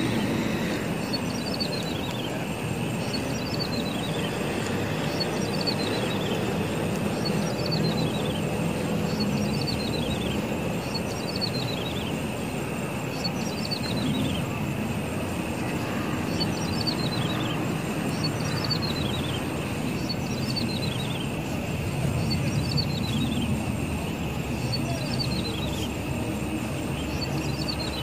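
Small grassland bird known locally as klik-klik or ciblek sawah singing: a short phrase of quick notes falling in pitch, repeated about every second and a half, over a steady low rush.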